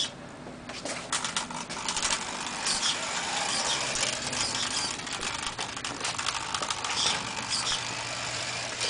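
Remote-controlled toy car driving off, its motor running and wheels rolling over the ground, with many small clicks and rattles.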